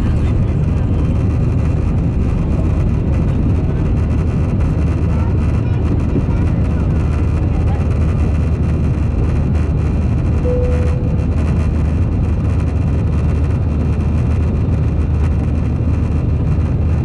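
Airbus A320-214's CFM56 engines and rushing airflow heard inside the cabin from a seat over the wing, a loud, steady deep drone at high thrust during takeoff. A short single tone sounds about ten seconds in.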